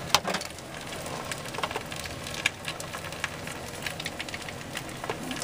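Egg and bread frying in bacon grease in a cast iron skillet: a steady sizzle with scattered crackles and pops, the sharpest just after the start.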